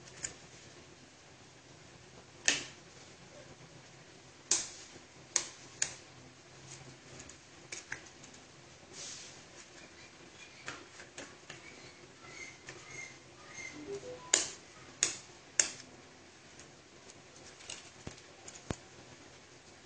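Eggs being cracked on a bowl and their shells handled: a series of sharp taps and clicks, the loudest coming in groups about two and a half seconds in, around five seconds in and near fifteen seconds in, with lighter clicks between.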